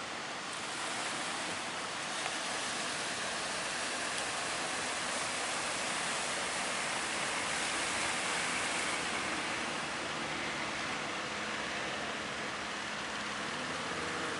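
Steady rush of surf breaking at a river-mouth channel, with the faint steady drone of a fishing boat's engine coming in during the latter part.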